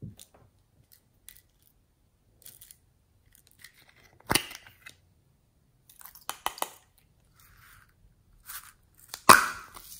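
Small plastic slime containers being handled and opened: scattered light taps and clicks, with sharp plastic snaps about four seconds in and again around six and a half seconds, and the loudest one near the end.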